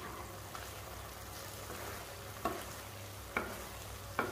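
Wooden spatula stirring thick banana halwa in a non-stick kadai, with a low sizzle from the mixture cooking in ghee. Three sharp knocks of the spatula against the pan come in the second half.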